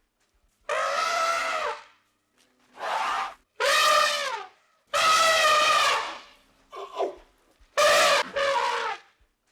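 An animal calling: a series of about seven drawn-out, strongly pitched calls with short silences between them, the longest lasting over a second.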